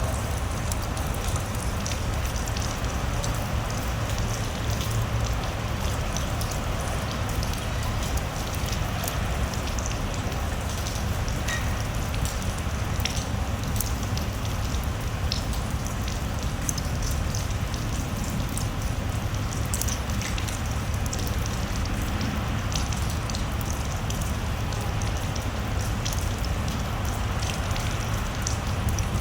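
Steady rain falling, an even hiss with many individual drops striking close by as scattered sharp ticks.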